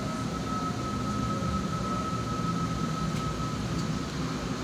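Inside an LRT-2 light-rail car running on elevated track as it enters a station: a steady rumble of wheels on rails, with a steady high whine that fades out about four seconds in.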